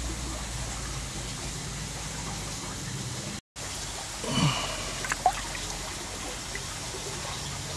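Water trickling steadily, with a short gap about three and a half seconds in, a brief louder sound about a second later and a couple of sharp clicks just after.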